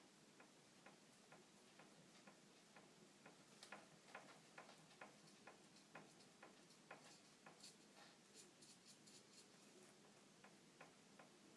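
2013 Fox Float CTD rear air shock knocking with faint, irregular clicks as it is worked down and up. The clunk comes from play in the piston bushing.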